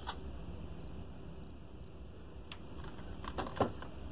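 Quiet workbench handling noise: a coiled microphone cord and small parts being picked up and set down, giving a few light clicks, with a low steady hum underneath. About three seconds in comes a cluster of clicks and a brief falling sound, the loudest moment.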